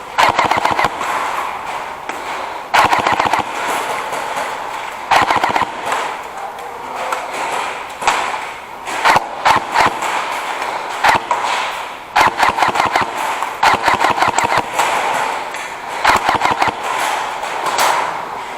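Airsoft guns firing repeated short bursts of rapid fire, a burst every couple of seconds, in a close-quarters game.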